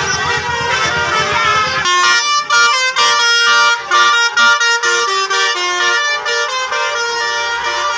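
Bus telolet horn playing a tune: a multi-tone air horn sounding short notes that step up and down in pitch. For about the first two seconds a low rumble and other jumbled sounds run under it, then the horn is heard on its own.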